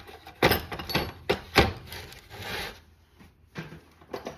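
Hard objects being handled and set down on a surface: a few sharp knocks and clacks, a short rustle, then lighter taps near the end.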